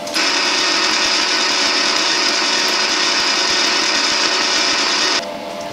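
Wire feed motor of an HTP Pro Pulse 200 MIG welder running steadily, turning the spool and pushing aluminum wire out through the gun. The whirr starts just after the beginning and cuts off sharply about five seconds in.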